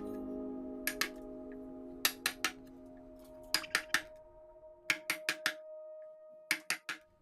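Light hammer taps in short runs of two to four, with pauses between, over a held acoustic guitar chord slowly dying away.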